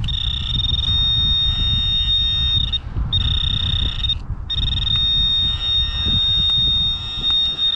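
Metal detecting gear sounding a steady high-pitched electronic tone on a metal target in a freshly dug hole. The tone breaks off briefly about three seconds in and again a little after four seconds, then holds to the end. Under it is a low rumble of wind on the microphone.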